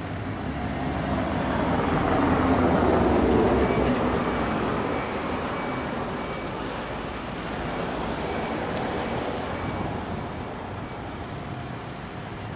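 Road traffic noise: a passing vehicle that grows louder over the first few seconds and then fades into a steady background rumble.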